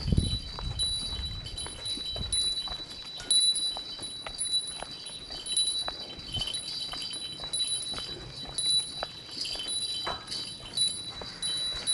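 Footsteps walking at a steady pace, with a small bell ringing high and continuously over them.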